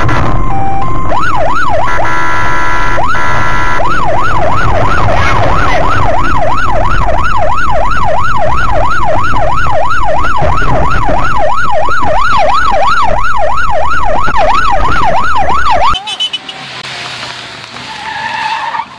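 Electronic siren wailing in fast yelp sweeps, about two to three rising-and-falling cycles a second, very loud over road noise, with a few seconds of steady horn-like tone about two seconds in. It cuts off suddenly about sixteen seconds in, leaving a quieter car engine and tyre noise.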